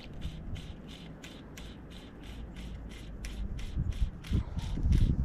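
Fly line being stripped in by hand on the retrieve, rubbing through the fingers and rod guides in quick, even strokes of about five a second.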